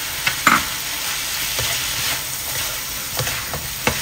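Mushrooms and garlic sizzling in oil in a nonstick wok, stirred with a plastic spatula. Several sharp knocks and scrapes of the spatula against the pan, the loudest about half a second in.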